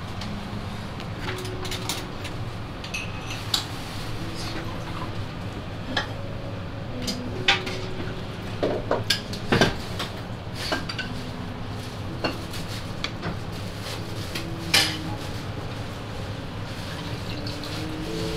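Dishes and cutlery clinking at irregular intervals in a restaurant, with a cluster of louder clinks around the middle, over a steady low background hum.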